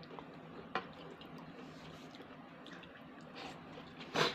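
Eating sounds: chopsticks click once against a paper bowl about a second in, then a short, loud slurp as a mouthful of pasta is sucked in near the end.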